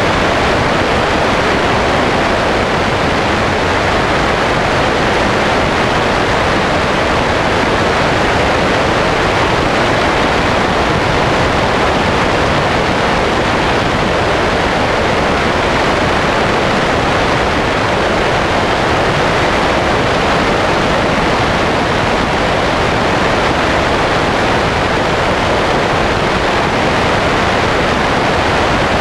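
Loud, steady rush of wind over a wing-mounted camera on a Sonex light aircraft in flight, an even noise with no engine tone standing out.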